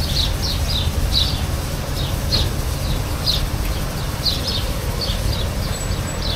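Insects chirping in short, high, repeated calls, a few a second at uneven spacing, over a steady low rumble.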